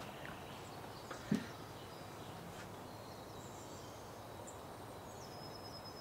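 Quiet outdoor ambience with faint small-bird chirps and a thin high whistle in the second half, and a single short low thump about a second in.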